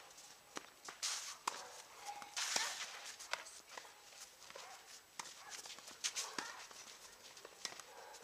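Tennis balls struck by rackets and bouncing on the court, sharp knocks about a second apart, with players' shoes scuffing the court.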